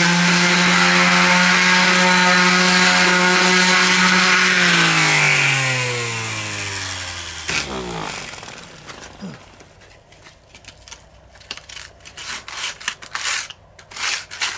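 Electric orbital sheet sander running at a steady pitch on wooden boards, then switched off about four and a half seconds in, its motor winding down with a falling pitch over about three seconds. After that, light irregular knocks and clacks of the wooden slats being handled.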